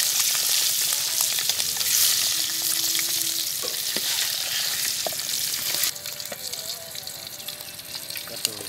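Boiled eggs frying in hot oil in a metal pot, sizzling, with a metal spatula scraping and clicking against the pot as they are turned. The sizzling drops suddenly to a quieter level about six seconds in.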